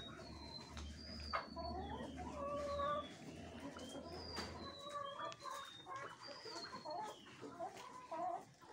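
Chickens clucking, with many short, high peeping notes scattered over the clucks.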